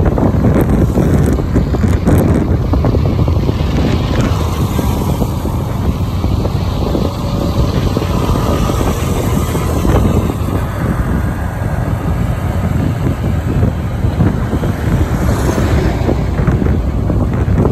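Heavy wind buffeting the microphone over the steady running noise of a moving vehicle.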